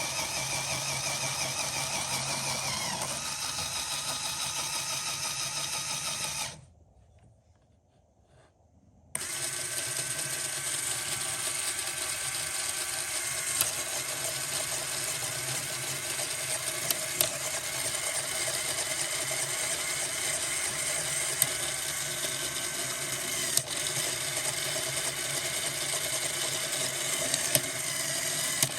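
Small electric motor whirring as it drives a LEGO Technic plastic gearbox, a steady whine of meshing gears that drops in pitch about three seconds in. It stops for a couple of seconds and starts again, with a few sharp clicks scattered through the rest.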